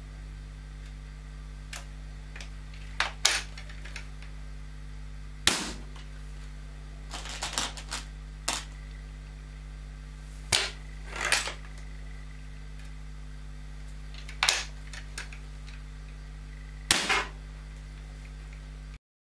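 Weihrauch HW95 spring-piston air rifle in .25 firing five sharp shots a few seconds apart, with quieter clicks between them and a steady low hum underneath.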